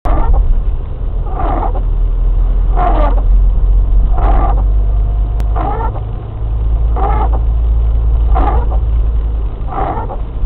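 Windshield wipers squeaking as they sweep across the rain-wet glass, seven times about every one and a half seconds, over the steady low rumble of the car's engine and tyres, heard inside the cabin.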